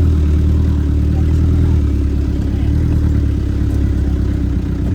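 Off-road vehicle's engine running steadily with a low drone, its note shifting slightly about two seconds in.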